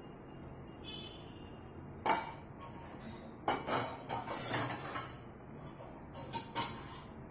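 Metal kitchenware clinking and knocking: a sharp knock about two seconds in, a run of clanks and rattles through the middle, and two lighter knocks near the end, over a low steady hum.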